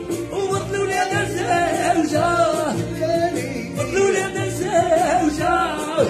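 A man singing raï in Arabic in his natural voice, without effects, with ornamented, wavering held notes over a steady instrumental backing.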